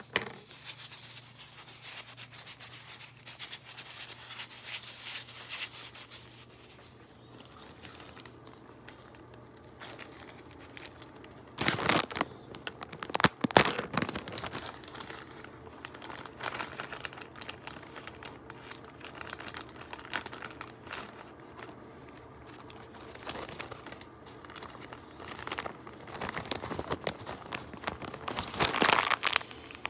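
Clear plastic bag crinkled and crushed in gloved hands close to the microphone, a continuous crackling, louder about twelve to fourteen seconds in and again near the end.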